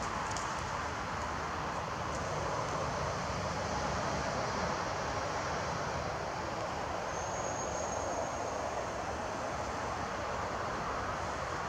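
Steady, even background noise with no distinct events, and a faint thin high tone for about a second around the middle.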